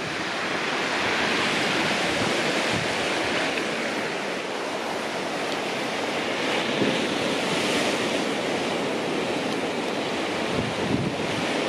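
Sea surf breaking and washing on a pebble beach, a steady rushing, with occasional gusts of wind buffeting the microphone.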